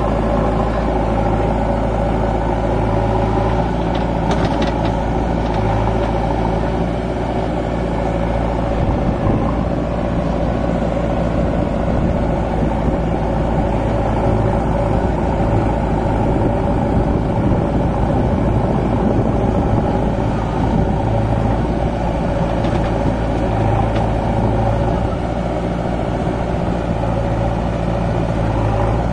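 Heavy diesel engine idling steadily, a low, even hum that holds the same pitch throughout.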